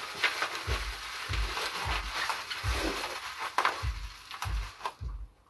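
Plastic packing wrap crinkling and rustling as it is wrapped around a bottle by hand, with repeated soft low thumps.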